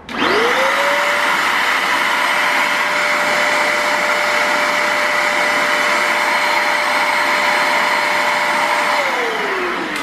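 Multilaser HO03 1000 W handheld vacuum cleaner switched on, its motor spinning up within half a second to a steady whine over a rush of air. It runs steadily with a brush nozzle fitted, then is switched off about nine seconds in, the whine falling as the motor winds down.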